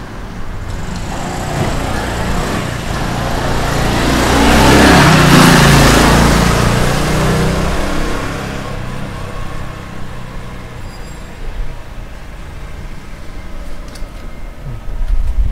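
A motor vehicle passing close by: engine and tyre noise swell to a peak about five seconds in, then fade away over the next few seconds.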